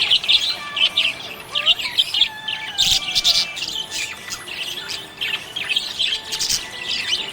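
Budgie chirping and warbling: a rapid, continuous run of short high chirps mixed with a few gliding whistles.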